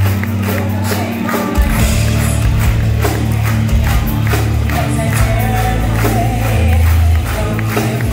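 Metal band playing live and heard from the audience, with heavy bass and drums under a woman's singing.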